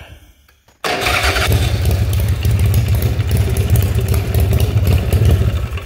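Custom chopper's RevTech V-twin engine firing up immediately about a second in, then running with a fast, even pulsing beat. It fires right up.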